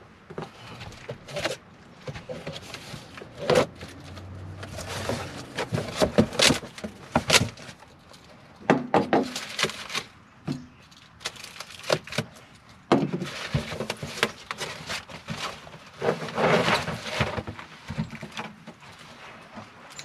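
Cardboard box being opened and a roof vent fan lifted out of its packing: irregular rustling and scraping of cardboard flaps and packing sheets, with occasional knocks.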